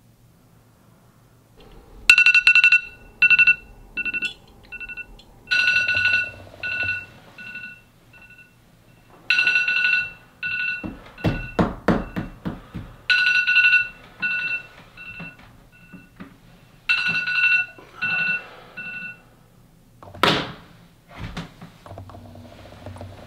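Phone alarm beeping in bursts of quick two-pitch beeps, a new burst about every four seconds, each starting loud and tailing off. Around the middle a few knocks, as a hand reaches onto the nightstand, and a short swish near the end.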